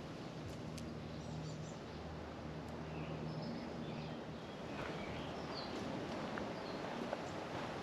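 Woodland ambience: short, faint bird chirps scattered over a steady low hum and background noise, with a few light ticks.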